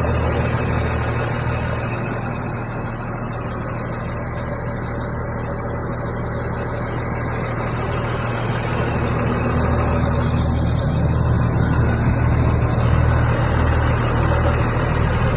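Diesel engine of a Caterpillar 535B wheel skidder running steadily with a deep, even hum. It gets a little louder in the second half.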